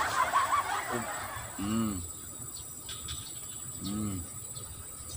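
A man's voice trailing off from laughter, then two short hums or murmurs, over a quiet outdoor background with a faint steady insect drone.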